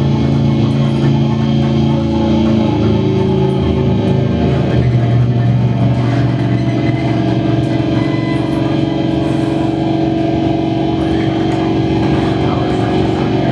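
Loud live amplified drone music: layered sustained tones held steady, the low notes moving to new pitches about two and a half and five seconds in.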